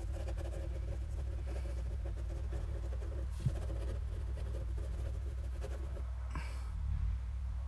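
Pen scribbling faintly on a paper notepad over a steady low hum, with one light knock about three and a half seconds in.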